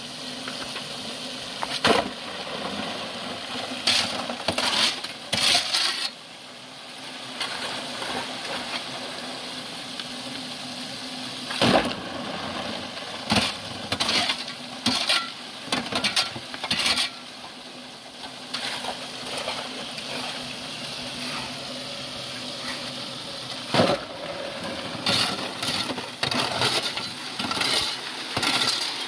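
A string of irregular sharp clinks and knocks, with a few louder strikes about two, twelve and twenty-four seconds in, over a steady hiss.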